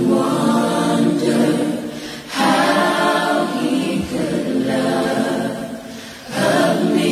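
A gospel vocal group of men and women singing together in long held phrases, with new phrases starting about two and a half and six seconds in.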